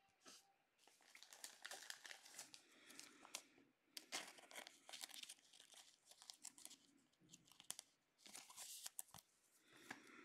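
Quiet, irregular crinkling and rustling of a clear plastic card sleeve and trading cards being handled, as a card is slid into the sleeve.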